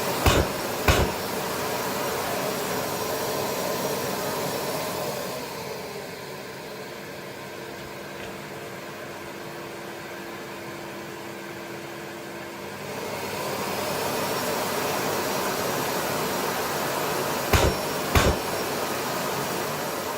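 Makita VC4210M vacuum cleaner motor running steadily. About five seconds in, its motor falls to a lower, quieter speed for several seconds, then winds back up. Two sharp clicks come near the start and two more near the end.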